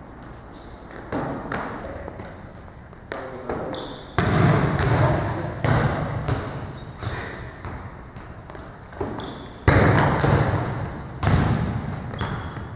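A volleyball being hit and bouncing on a gym floor: about six sharp smacks, each echoing around the large gym hall.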